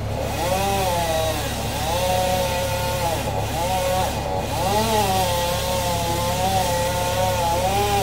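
Chainsaw running and cutting, its pitch dipping and rising over and over as it works through wood. A steady low engine drone runs underneath.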